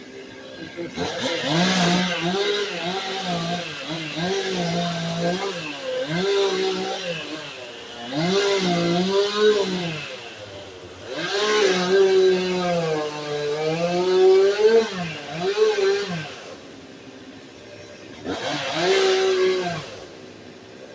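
Two-stroke chainsaw at high revs cutting a fallen tree, its pitch repeatedly dipping and recovering as it works, dropping back to a quieter idle between bursts and running up once more near the end.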